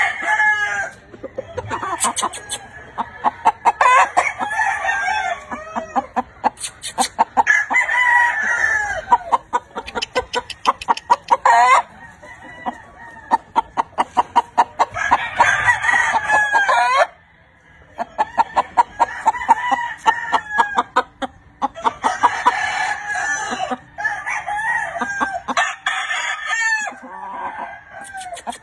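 Game roosters crowing again and again, several birds overlapping, with clucking and many short clicking sounds in between.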